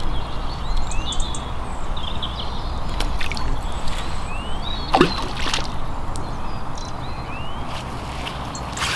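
A cast bait or rig landing in the pond with a single deep plop about five seconds in. Small birds chirp around it over a steady low rumble.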